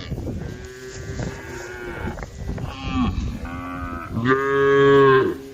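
Several cows mooing, their calls overlapping one after another. The loudest and longest moo comes near the end.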